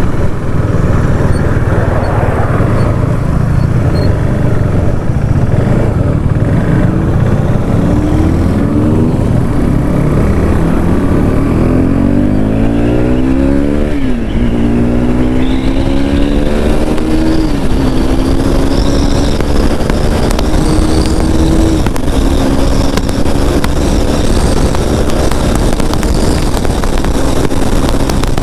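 KTM RC 390's single-cylinder engine accelerating hard through the gears. The revs climb and then drop sharply at two upshifts around the middle, then hold high at speed. Heavy wind noise on the microphone throughout.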